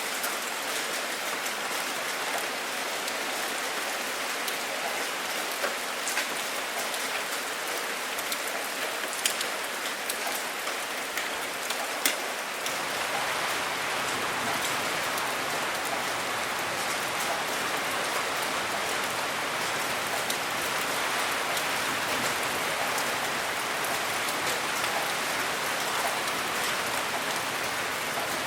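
Steady rain falling, an even hiss with scattered sharper drop ticks. About twelve seconds in it becomes a little fuller and louder.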